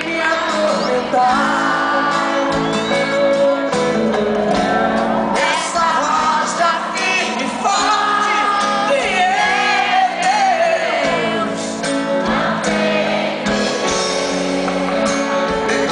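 Live gospel song: a voice singing a melody with vibrato over instrumental accompaniment, with some shouting.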